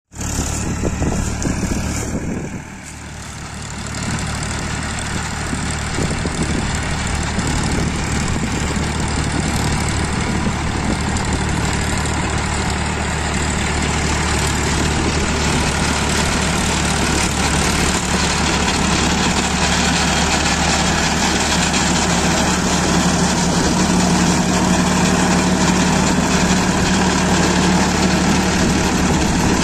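Powertrac Euro 50 tractor's diesel engine running steadily under load, driving a rotavator through wet paddy mud. The sound dips briefly about two seconds in, then grows gradually louder.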